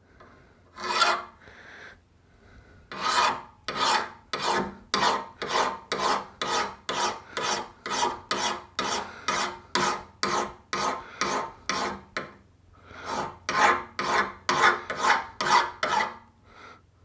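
Hand file rasping along the cutting edge of a Kubota Z412 mower blade to sharpen it, in even strokes about two a second: one stroke, a run of about eighteen, a short pause, then about eight more.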